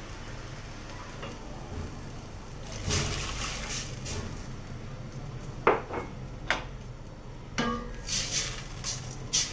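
Cooking at a stainless-steel soup pot: a rush of liquid going in about three seconds in, then a few sharp clinks and scrapes of a spoon against the pot as the soup is stirred.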